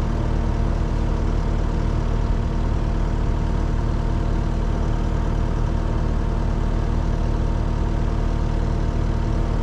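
Caterpillar compact track loader's diesel engine idling steadily, an even low hum.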